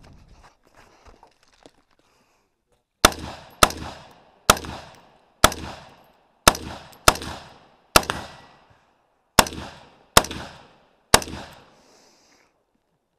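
Ten rifle shots from a DPMS 3G1, an AR-15-pattern rifle in .223 Remington, fired singly at uneven spacing of about half a second to a second and a half, each followed by a short echo. A few faint handling knocks come before the first shot, which is about three seconds in.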